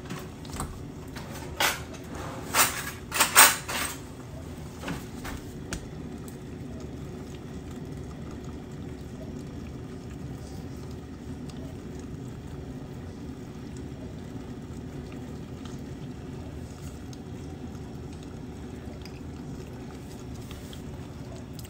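A metal spoon scraping and knocking against a plastic ice cream pint several times in the first few seconds, over a steady low hum.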